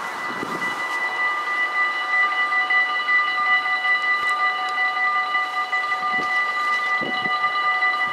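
Electric warning bells of a Dutch AHOB level crossing ringing, starting up within the first second as the red lights begin to flash: a steady, rapid, high metallic ringing that warns of an approaching train.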